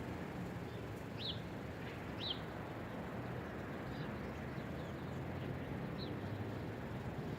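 Steady low rumble of wind over the microphone, with a bird giving short high chirps three times: about a second in, about two seconds in, and near the end.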